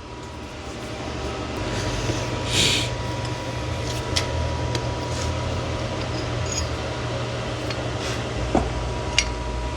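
A steady machine hum, with a short hiss about two and a half seconds in and a few light clicks near the end.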